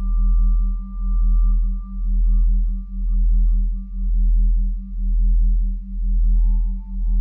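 Ambient drone soundtrack of pure sustained tones: a deep hum that swells and dips about once a second, a faster pulsing tone above it, and thin steady high tones, with a new, slightly lower high tone coming in about six seconds in.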